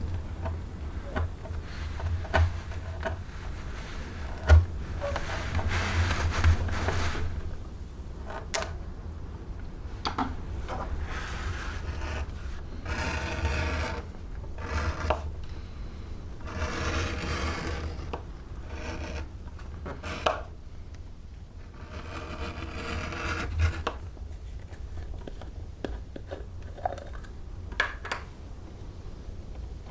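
Leather being worked by hand: a few long rubbing, scraping strokes, each about two seconds, among scattered sharp clicks and taps.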